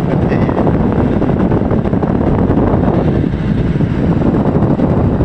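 Wind buffeting a phone's microphone over the steady rumble of a Mahindra pickup truck driving on a rough dirt road, heard from its open cargo bed.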